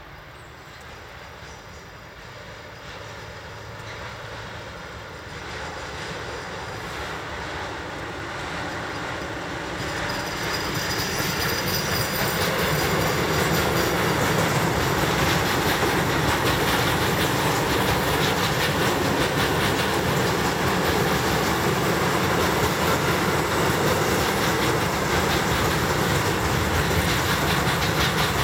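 Freight train passing: the approaching train grows steadily louder over the first dozen seconds, then the wagons roll by with a continuous clatter of wheels on rail joints.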